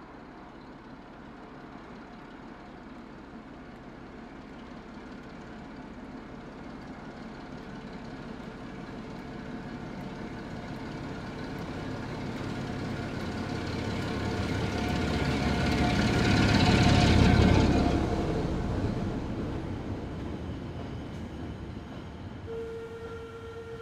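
Class 08 diesel shunter's engine running under load, growing steadily louder as the locomotive approaches, loudest as it passes about 17 seconds in, then fading as its wagons roll by. A short steady tone sounds near the end.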